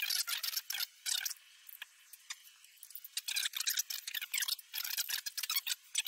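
Quick small metallic clicks and scrapes of an old slide-action 12-gauge shotgun's steel parts being handled and worked on the magazine tube, in clusters with a quieter stretch after about a second and a half.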